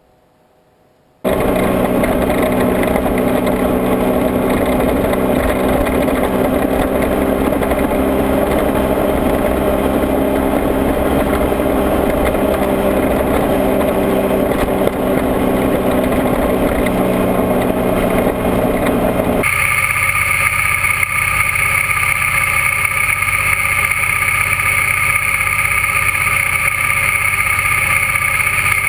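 Sport motorcycle engine running at a steady cruise, heard through a camera mounted on the bike, with wind noise mixed in. It starts suddenly about a second in, and its tone changes abruptly about 19 seconds in, then holds steady again.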